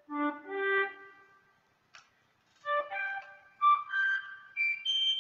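EWI 5000 electronic wind instrument playing its classical C flute voice. Two low notes come first, then after a pause a run of short notes climbs high, and the last one is held and rings on. There is a short click about two seconds in.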